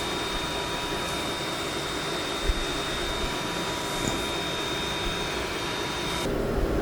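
Steady machine whirring with two thin high whines. About six seconds in, the whines and the upper hiss cut off, leaving a lower hum, with a faint thump or two along the way.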